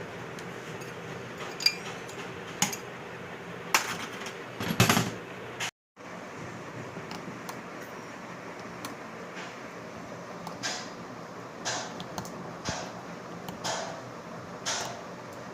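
Irregular light metal clicks and knocks from tools and parts being handled during a turbocharger rebuild, over a steady low hum. The clicks are louder and closer together in the first few seconds, then softer and about a second apart.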